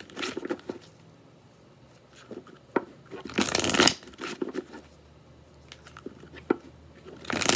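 A tarot deck being riffle-shuffled by hand: a dense burst of cards flicking together about three and a half seconds in and another near the end, with light clicks and taps of the cards in between.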